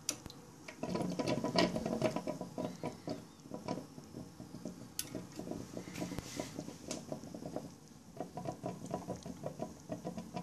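Pumped rainwater gurgling and trickling from a thin tube into a toilet cistern in quick, irregular spurts as the cistern fills, with a sharp click or two.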